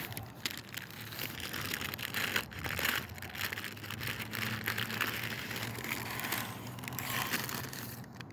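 Paper sandwich wrapper crinkling and crackling as hands tear it open.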